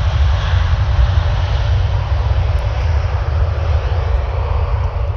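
Boeing 787 Dreamliner's twin turbofan jet engines at takeoff thrust during the takeoff roll: a loud, steady jet noise with a heavy low rumble, easing off slightly over the last couple of seconds.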